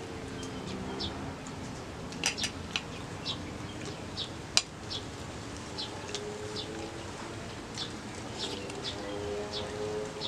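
A metal spoon clinking and scraping against a ceramic plate a few times while eating, the sharpest clinks about two and four and a half seconds in. Birds chirp repeatedly in the background.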